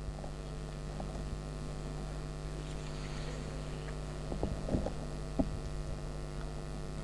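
Steady electrical mains hum from the microphone and sound system, with a few faint clicks about four to five and a half seconds in.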